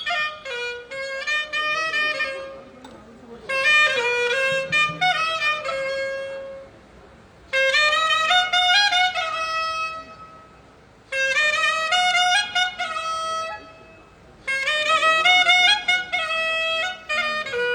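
A single melodic instrument playing the same short stepping phrase again and again during a sound check. The phrase lasts a couple of seconds and returns about every three and a half seconds, five times in all, with short quiet gaps between.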